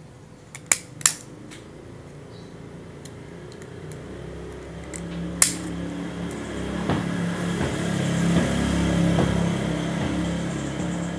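A few sharp clicks, two close together about a second in and one more mid-way, then a low engine hum that builds over several seconds and slowly eases off, as from a passing motor vehicle.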